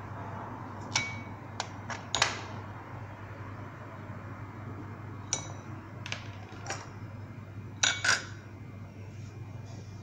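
Hard plastic toy pieces being lifted off and set down on a kitchen scale's glass platform: a scattered series of sharp clicks and clinks, with a low steady hum underneath.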